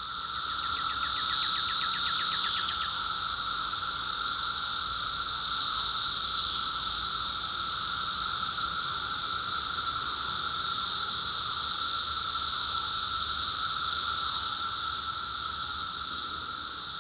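Chorus of male Brood II 17-year periodical cicadas (Magicicada) singing by flexing their tymbals to attract mates: a continuous, high, dense buzzing drone. It swells louder about two seconds in and again about six seconds in, with a rapid pulsing in the first few seconds.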